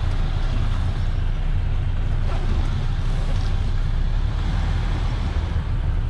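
Semi-truck's diesel engine running steadily while the truck manoeuvres slowly, heard inside the cab as a low, even rumble.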